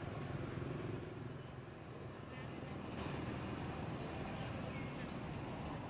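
A steady low engine hum, with a few faint short high chirps about halfway through.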